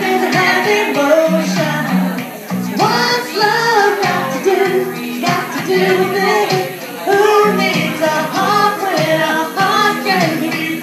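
A woman singing a song into a microphone, her melody continuous and loud.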